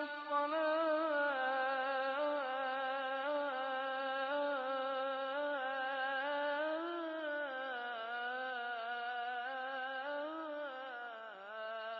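A single voice singing a slow melody of long held notes that waver and bend, without clear words, in the manner of an unaccompanied nasheed.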